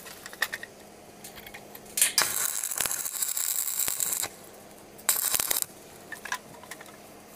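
Stick (arc) welding on a mild-steel pipe railing post: the arc's crackle cuts off at the start, is struck again about two seconds in and crackles for about two seconds, then flares once more briefly near five seconds, with small metallic ticks and clinks between.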